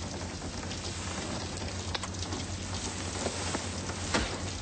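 Steady rain falling, an even hiss with scattered faint drop ticks, over a low steady hum.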